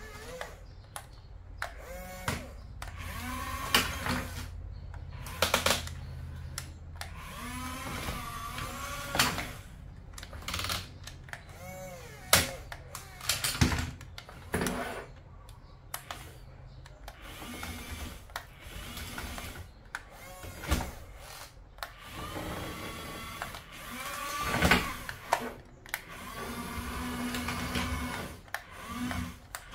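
Toy radio-controlled excavator's small electric motors whining up and down in pitch as the boom, bucket and tracks move, with sharp clicks and knocks of the plastic machine and the toys it strikes.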